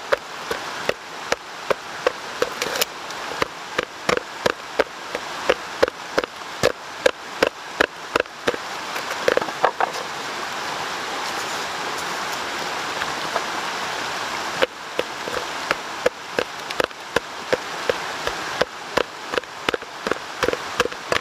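Hand-held stone pounding dry lumps of natural clay in a plastic bucket to crush them: repeated sharp knocks, about two to three a second. The knocks stop for a few seconds in the middle, leaving a steady rough noise, then resume.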